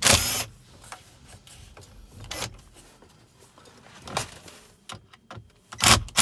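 Screws being taken out of a car dashboard's mounting brackets: a power screwdriver runs briefly at the start and again near the end, with a few short knocks and clicks of the tool and plastic trim in between.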